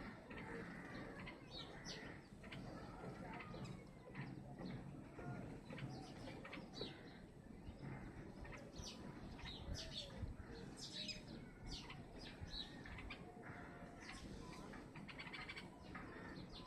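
Birds chirping in many short, separate calls, fairly faint, over a low background hiss.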